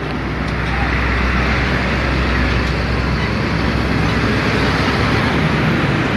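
Bus driving past close by: a steady engine rumble with road and tyre noise, the deep rumble easing about three seconds in. No horn is sounded.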